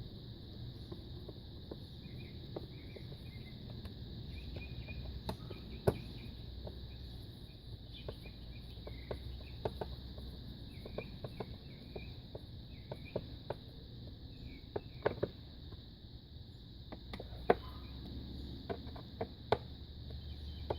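Scattered sharp clicks and taps of plastic engine-bay parts being handled as an air filter housing cover is refitted and screwed down. The clicks come irregularly, the loudest about six seconds in, over a steady high drone of insects with bird chirps.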